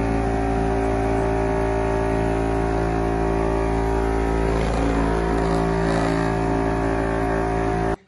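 Small electric motor and fan of a homemade plastic-bottle vacuum cleaner running at a steady speed with a constant whine. Around the middle there is a faint rattle of dry grains being sucked up the pipe into the bottle.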